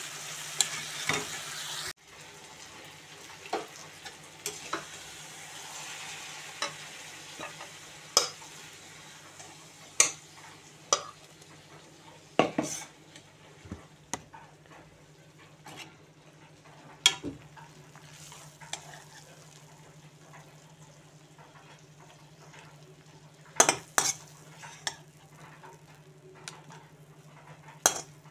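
Chicken curry sizzling in a wok as it is stirred with a spatula. The sizzle cuts off abruptly about two seconds in. Scattered clicks and knocks of the spatula against the pan and a steel bowl follow as the food is dished out, over a steady low hum.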